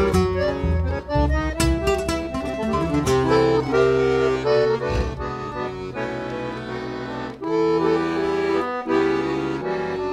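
Chamamé played on a Piermaria accordion with two acoustic guitars and a double bass, the accordion leading in long held notes over plucked guitar accompaniment.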